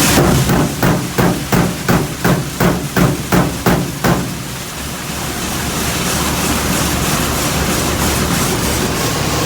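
Harvest machinery running steadily, with an even series of about a dozen sharp knocks, roughly three a second, that stops about four seconds in.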